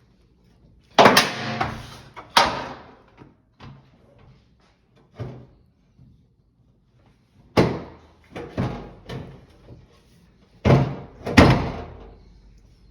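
A series of sharp knocks and bangs from washing-machine parts being handled and fitted during reassembly. The loudest come about a second in and again near the end.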